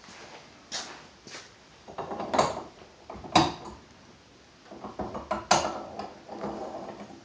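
Metal parts of an AR-15 lower receiver and buffer tube assembly being handled and fitted: a series of irregular clicks and knocks, the sharpest about a third of the way in.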